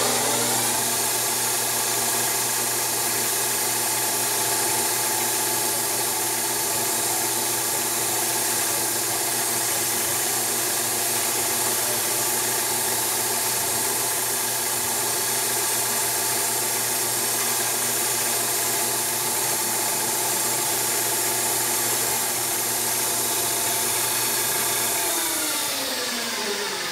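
CNC lathe spindle running while a carbide tool turns an aluminium bar, a steady whine of several tones over a hiss. Near the end the whine falls in pitch as the spindle winds down for a tool change.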